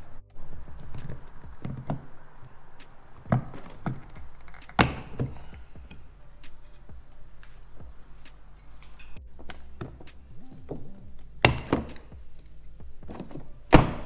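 A few sharp knocks and clicks from working a pickup truck's door and exterior door handle, over a low steady hum; the loudest click comes near the end.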